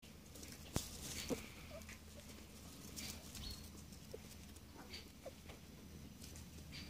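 Straw crackling and rustling with scattered small clicks as a doe rabbit and her kits shift about in a straw nest while nursing; two sharp clicks about a second in are the loudest.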